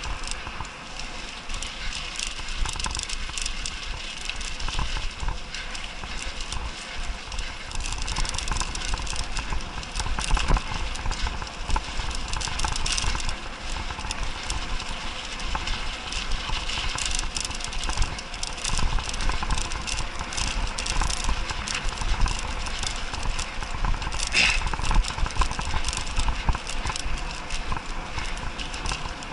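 Mountain bike ridden fast over a bumpy sandy dirt track: continuous clatter and rattling of the bike over the ruts, with a steady low rumble underneath.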